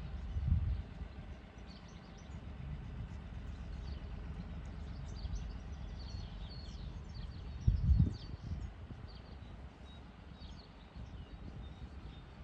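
Small birds chirping repeatedly in short high calls over a steady low rumble. Two louder low bursts come about half a second in and near eight seconds in.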